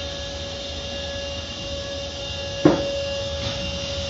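Car wash machinery running with a steady hum and a constant whine. A single short knock comes about two and a half seconds in.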